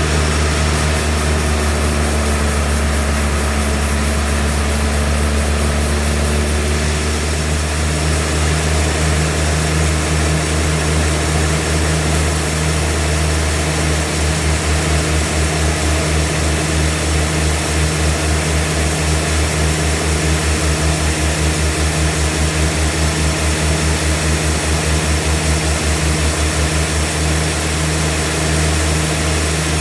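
Sawmill machinery running with a steady, loud low engine drone. For a while in the middle the low drone pulses rapidly.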